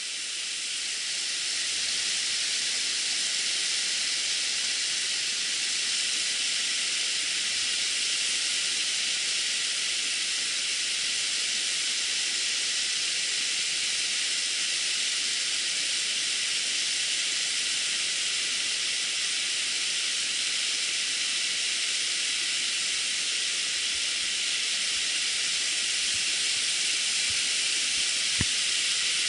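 River water rushing over rocks in shallow rapids, a steady hiss. A light knock or two near the end.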